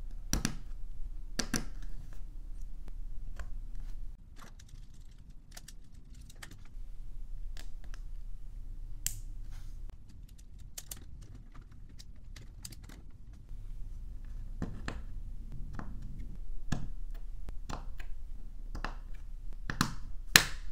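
LEGO Technic plastic parts clicking and snapping together as they are assembled by hand: many light clicks with a few sharper snaps, the loudest near the end.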